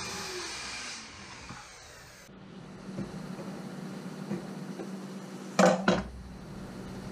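Handheld circular saw spinning down after a cut, its whine falling away over the first second or two. Later a steel square is set down on the wooden bench with two sharp knocks, under a steady low hum.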